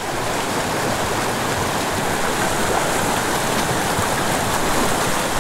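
Small mountain creek rushing steadily over a rocky cascade into a clear pool.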